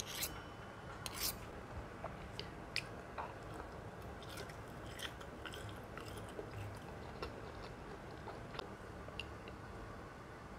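Metal fork and spoon clicking together a few times near the start, then sparse, soft mouth clicks and chewing sounds.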